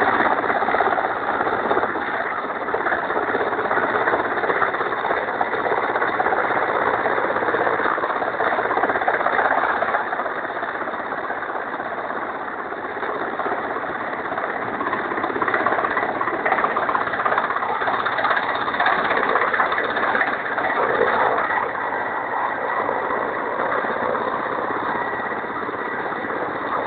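Steady rotor and turbine noise of a Mi-8-type transport helicopter hovering low with a slung load.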